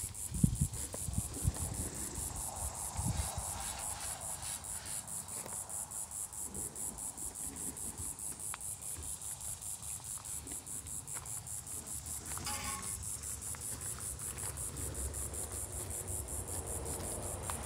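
Insects chirping in a steady, rapid, even pulse, high-pitched and unbroken, with a few low knocks in the first few seconds.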